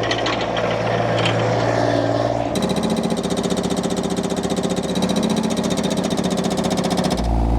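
Ride-on skid steer's engine running, then about two and a half seconds in its hydraulic concrete breaker starts hammering rapidly into caliche. The hammering runs for about four and a half seconds and stops abruptly.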